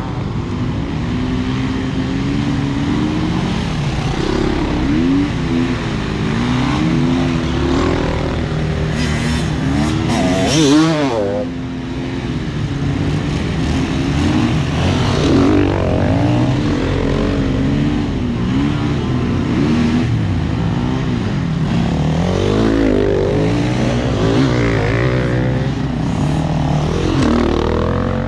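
Off-road enduro motorcycle engine running under load, its pitch rising and falling over and over as the throttle is worked, with a hard rev to a high pitch about ten seconds in.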